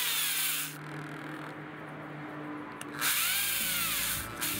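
Handheld power drill running, with a bit cutting into the edge of a hole in an aluminum block: a harsh burst that ends under a second in, then a second burst from about three seconds in, its pitch rising and falling with the motor speed.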